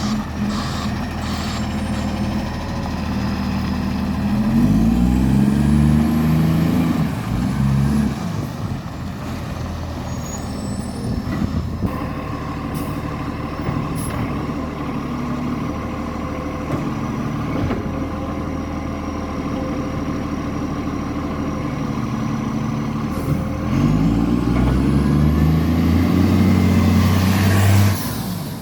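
Garbage truck's diesel engine revving up twice, for a few seconds each time, and running at a steady lower speed in between, with a high whine that rises and falls with the revs. The truck has a very bad exhaust leak.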